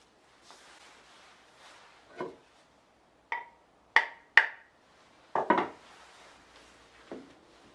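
Hammer taps on a Japanese wooden plane (kanna), the way its blade is set and adjusted: about six sharp knocks, irregularly spaced. The three loudest come close together in the middle, each with a brief metallic ring, and a quick double knock follows.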